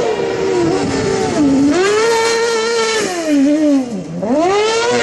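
Kartcross buggy's motorcycle-derived engine running at high revs, with the revs dipping and climbing again twice.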